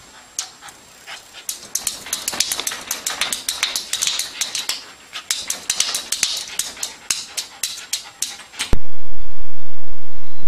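Small dog barking at its own reflection in quick, short, high yaps, several a second. About nine seconds in, a loud steady hiss cuts in abruptly.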